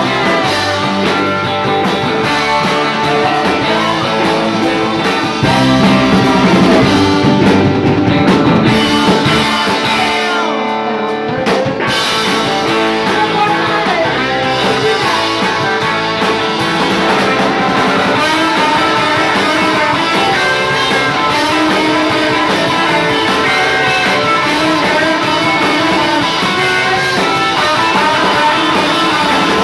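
Live rock band playing loud: electric guitars, bass guitar, drum kit and saxophone, with a woman singing. About ten seconds in the bass and drums drop out for a moment, then the full band comes back in.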